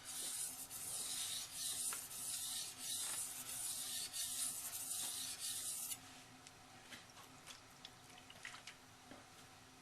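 AEB-L steel knife blade stroked back and forth on a wet 1000-grit Nubatama bamboo waterstone: a steady rasping hiss that swells with each stroke and stops about six seconds in, leaving only faint small ticks.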